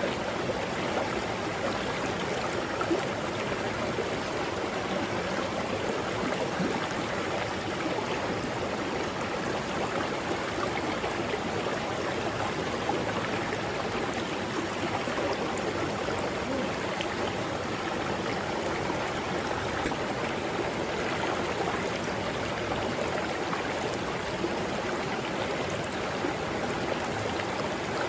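Mountain river running over rocks: a steady, even rush of flowing water.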